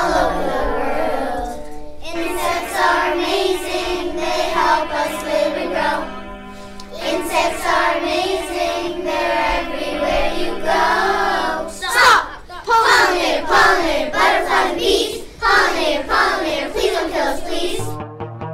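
Young children singing a song together, with music behind them.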